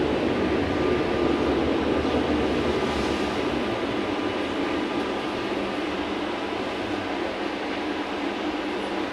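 VMZ-5298-20 electric trolleybus moving along a city street, heard from inside the passenger cabin: a steady running hum with road noise, a little quieter after about four seconds.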